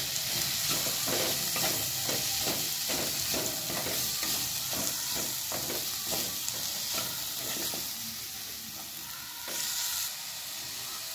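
Chopped vegetables sizzling in hot mustard oil in a metal pan while a wooden spatula stirs and scrapes them in quick repeated strokes, about three a second. The stirring stops about three quarters of the way through, leaving only the sizzle.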